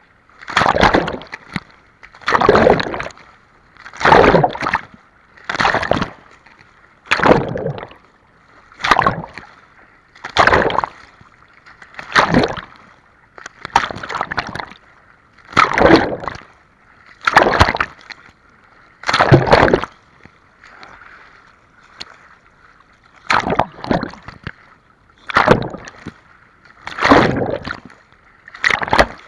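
A swimmer's strokes in open sea water, heard right at the surface: a rhythmic splash and rush of water about every one and a half to two seconds as the arms pull through. Between the strokes the sound is muffled, as it goes under and out of the water. The strokes pause for about three seconds past the middle and then start again.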